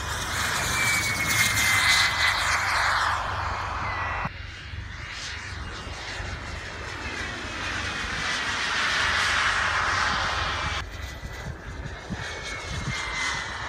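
Radio-controlled model aircraft making fast low passes: a rushing engine sound with a high whine that drops in pitch as it goes by, several times over.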